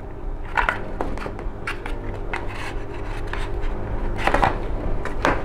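Plastic cycling helmet and its detachable visor being handled and fitted together: plastic rubbing and scraping, with about five sharp clicks and knocks.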